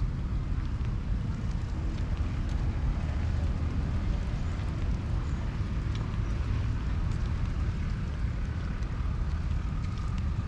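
Wind buffeting the microphone outdoors: a steady, uneven low rumble with a faint hiss of open-air background noise above it.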